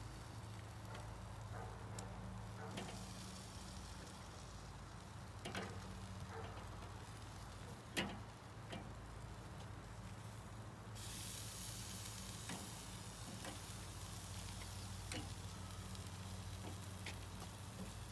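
Sauce-glazed chicken drumsticks sizzling over the coals of a Weber charcoal kettle grill. Metal tongs click and clack against the grate as the pieces are turned, with one sharp clack about eight seconds in. The sizzle turns brighter and louder about eleven seconds in.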